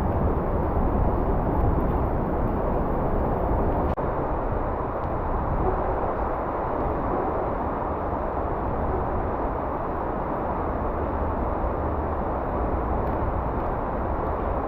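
River water rushing steadily: an even, unbroken noise with a low rumble beneath it.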